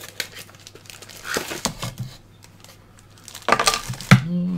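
Clear plastic bag holding a coiled USB cable crinkling and rustling as it is handled, in short irregular bursts, loudest near the end with a sharp knock as it is set down.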